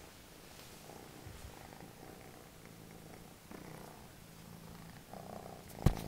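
Orange tabby kitten purring softly and steadily. A sharp knock near the end is the loudest sound.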